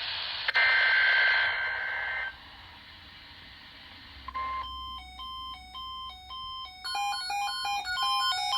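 Emergency Alert System test: the screechy digital data burst of the alert header ends about two seconds in, followed by a short hiss. From about four seconds in an electronic alert tone plays as a melody of beeps stepping between a few pitches, and it turns faster and fuller a few seconds later.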